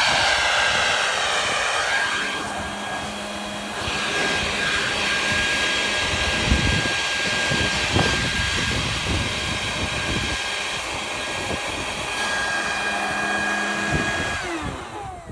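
Leaf blower running steadily, forcing air through a clothes dryer vent to blow out lint, with a steady whine and a few knocks partway through. Shortly before the end it is switched off and its whine falls away.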